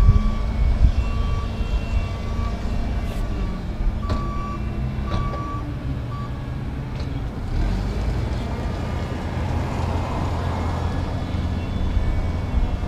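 Forklift backup alarm beeping repeatedly over a low engine rumble, the beeps stopping about seven seconds in.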